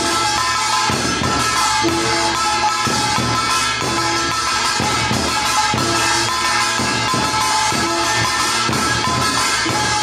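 Korean folk performance music with drums and other percussion keeping a steady beat.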